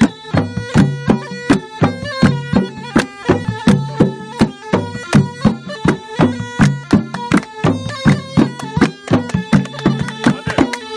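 Ney-anban, the southern Iranian bagpipe, playing a steady drone and melody over damam barrel drums beating a fast, even rhythm.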